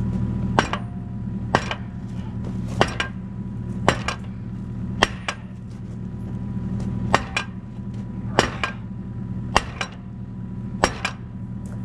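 Sledgehammer blows on steel, about one a second, some landing twice in quick succession, driving a new steel pin into an excavator's bucket hinge. The Kubota KX121-3's diesel engine runs steadily underneath.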